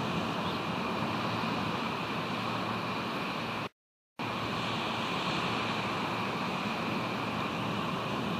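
Steady rush of wind and ocean surf on an outdoor nest-camera microphone, with no calls. The sound cuts out completely for about half a second near the middle, then resumes.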